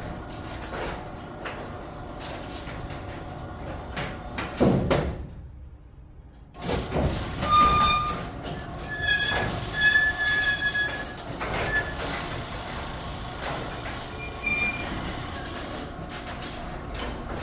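Sectional garage door rolling along its metal tracks with a steady rumble. The rumble drops away briefly about five seconds in, as the door stops and reverses, then starts again with high squeals in the middle. The door closes and opens without jamming despite its sagging panel.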